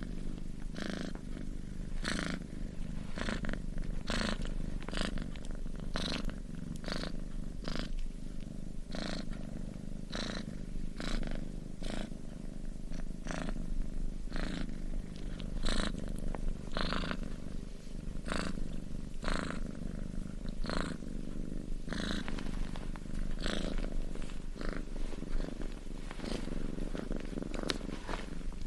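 Domestic cat purring steadily, a low continuous rumble with a soft breathy rasp about once a second.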